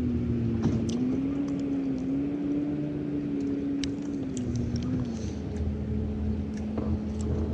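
Boat motor running steadily, its pitch wavering slightly and dropping a little about five seconds in, with a few faint light knocks.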